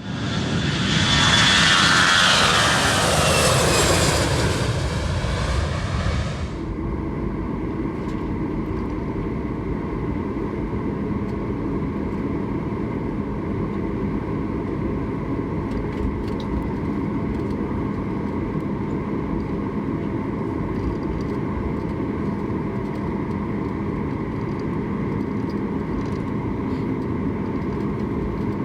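A loud rushing sound with falling pitch for about six seconds cuts off abruptly. It is followed by the steady drone of a Boeing 737 MAX 8 with its jet engines running, heard from inside the cabin, with a low hum running through it.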